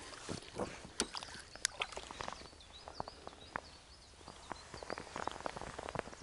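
Faint, scattered clicks and knocks from handling a feeder rod and tackle. About two seconds in, a bird calls a quick run of repeated high notes for a couple of seconds.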